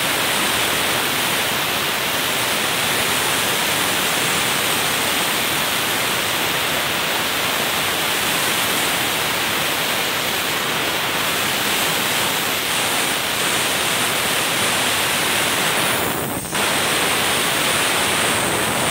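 Portable sandblaster nozzle blasting a metal part: a steady, loud hiss of compressed air and abrasive sand. It drops out briefly about sixteen seconds in, then resumes.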